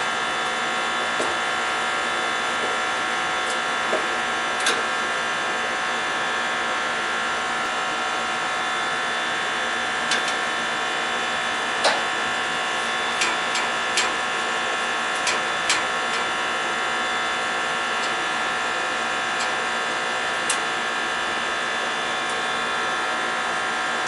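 A steady machine whine made of many fixed tones, like a small electric motor running, with about a dozen short clicks and knocks scattered through it.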